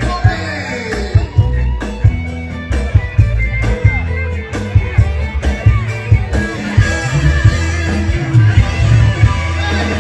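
Live band playing an instrumental break, with guitar over a steady bass line and regular drum beats.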